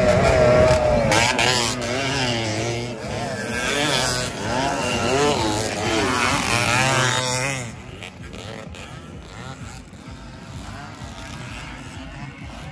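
A pack of Suzuki AX100 two-stroke motorcycles racing past close by on a dirt track, several engines revving up and down over one another. About eight seconds in the sound drops away to fainter, more distant engine noise.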